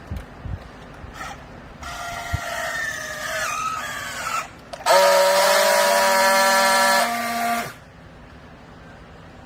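Hydraulic rag baler whining as it presses. A pitched whine rises for a couple of seconds, then a louder, steady whine with a hiss holds for nearly three seconds and cuts off.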